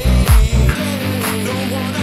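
Background dance music with a kick drum about twice a second that drops out less than a second in, leaving held synth tones.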